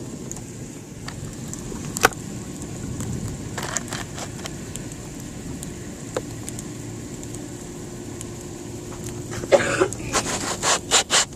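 Sleet and ice pellets ticking against a window over a steady low background, with scattered sharp taps, then a quick run of loud knocks and scraping near the end.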